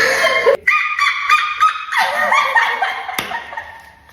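A person's voice making a loud, high, wavering squeal-like noise. It breaks off briefly about half a second in, then runs on for about three seconds and fades near the end.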